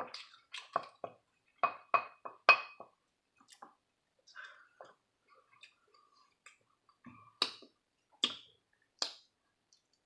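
Close-miked eating sounds: a run of short, sharp clicks and smacks as a mouthful of quinoa and kale is chewed, with three louder clicks in the last few seconds.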